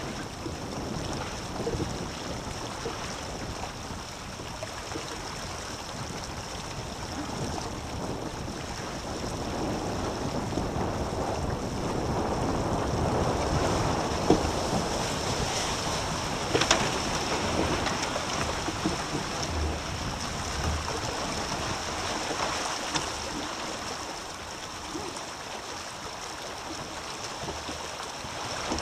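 Water rushing and splashing along the hulls of a small trimaran under sail, mixed with wind buffeting the microphone. The rush grows louder through the middle as the boat speeds up to about seven knots, with a couple of sharp knocks.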